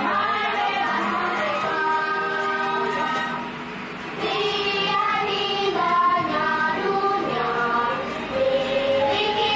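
A chorus of children's voices singing a cheerful sing-along song over backing music, with a short softer passage about four seconds in.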